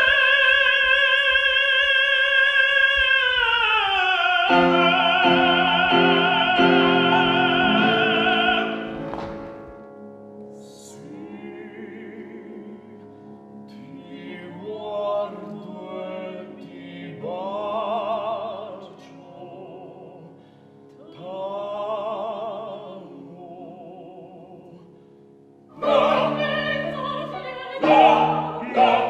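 Operatic singing with wide vibrato: a long held note that slides down about three to four seconds in, with instrumental accompaniment joining soon after. After about nine seconds it drops to soft, quieter sung phrases, then swells louder again near the end.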